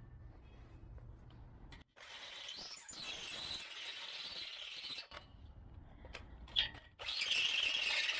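Drill with a step drill bit enlarging a hole for a lock, cutting in two runs of a few seconds each with a pause between, and a sharp click in the pause.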